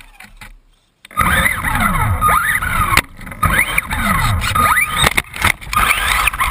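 RC buggy driving hard, heard from a camera mounted on the car: the motor's whine rises and falls over and over as it speeds up and slows down. Loud rumble and rattle from the wheels and chassis runs underneath, with a few sharp knocks. It starts suddenly about a second in.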